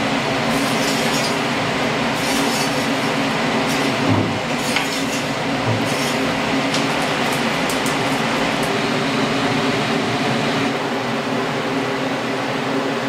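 Steady running machinery in a steamship's engine room: a continuous hum with scattered metallic clinks and a dull knock about four seconds in.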